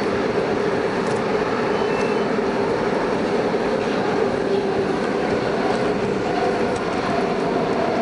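SEPTA M-4 subway-elevated train running at speed between stations, heard from inside the car: a steady rumble of wheels on rail with a constant hum, holding an even level throughout.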